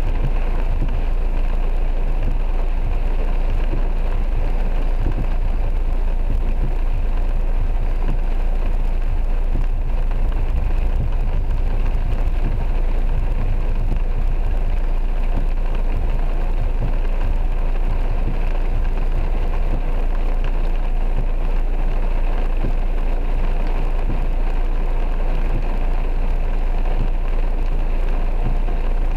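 Rain falling on a car's roof and windscreen, heard from inside the cabin, with a steady low hum underneath.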